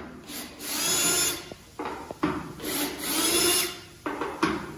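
Cordless drill drilling out the rivets that hold a sail track to an aluminium mast. It runs in two main bursts of about a second each, the motor speeding up and slowing down, with short taps and clicks between.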